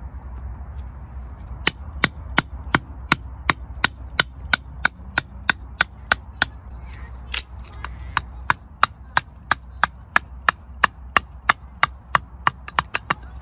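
Wooden baton knocking down on a blade set in a stick of firewood, batoning it into kindling: a long series of sharp, even knocks, about three a second, getting quicker near the end.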